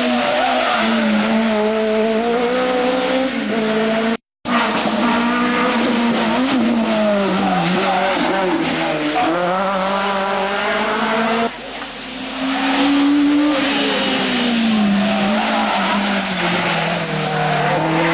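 Rally car engines revving hard, their pitch climbing and dropping again and again through gear changes. The sound cuts out completely for a moment about four seconds in and changes abruptly again near twelve seconds, as the footage switches between cars.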